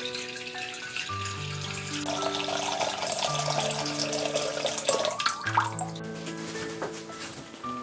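Water poured in a stream into a metal pot, splashing into the water already in it; the stream thins out in the last couple of seconds. Background music of sustained notes plays along.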